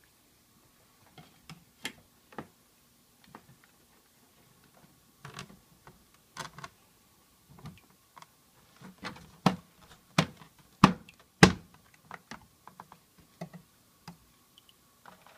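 Small glass discs clinking as they are set down by hand onto expanded clay pebbles: an irregular scatter of sharp clicks, the loudest in a cluster a little past the middle.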